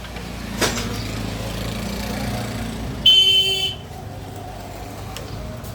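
Road traffic rumbling, with a vehicle horn giving one short honk of under a second about three seconds in, the loudest sound.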